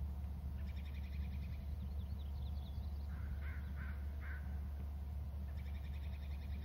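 Wild birds calling over a steady low hum: a rapid run of high notes, a few short rising notes, then three short, lower calls in the middle, and another rapid run of high notes near the end.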